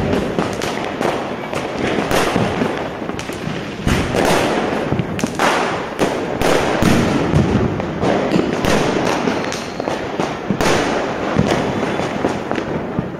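Fireworks going off in quick succession: a string of sharp bangs a second or two apart, over continuous crackling.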